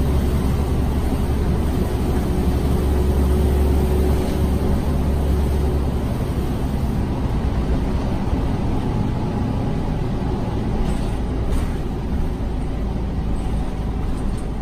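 Inside a moving Orion VII city bus: the low engine rumble runs with road and tyre noise. The rumble is heavier at first and eases about six seconds in, with a faint steady whine over it early on and a few light rattles later.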